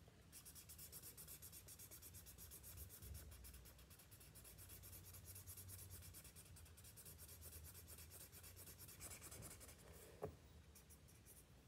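A felt-tip marker scribbling quickly back and forth on paper, colouring in a patch, faint and made of rapid short strokes that thin out near the end.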